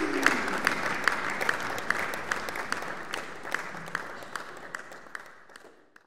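Audience applauding, the clapping fading out gradually to silence.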